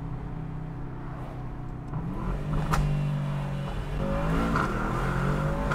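Aston Martin DBX 707's twin-turbo V8 in Sport Plus mode under acceleration. It gets louder about two seconds in, dips briefly in pitch near the middle, then climbs again as the car pulls.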